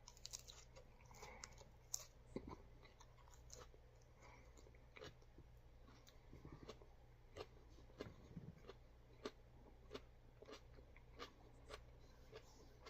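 Faint crunching and chewing as a raw purple Gator Jigsaw superhot chili pod is bitten and chewed, in scattered irregular crunches and wet mouth clicks.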